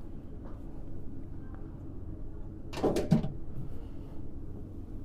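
A few sharp metal clicks and a clunk about three seconds in, over a steady low hum: the sheet-metal access door of a VAV terminal box being worked open.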